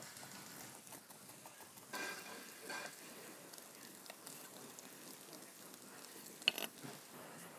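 Faint sizzling of chopped meat frying in a skillet, with a knife knocking on a wooden cutting board a couple of times near the end.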